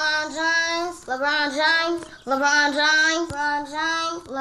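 A young boy singing unaccompanied: four short phrases of held, slightly wavering notes with brief breaks between them.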